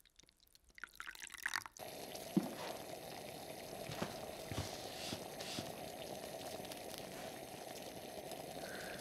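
A few faint drips and clicks, then, about two seconds in, a steady hiss sets in with scattered small ticks and bubbling: water heating in a tin can on a portable gas camping stove.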